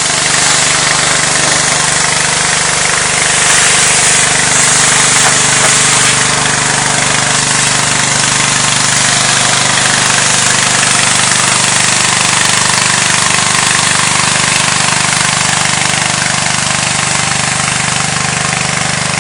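Gas-engine pressure washer running steadily: a constant engine hum under the loud hiss of the high-pressure water spray.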